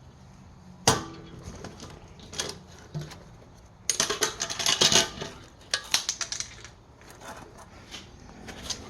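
Metal clinking and rattling of small steel parts and tools while valve keepers are removed from a Caterpillar C15/3406 diesel cylinder head: one sharp click about a second in, then a dense run of clinks from about four to six and a half seconds.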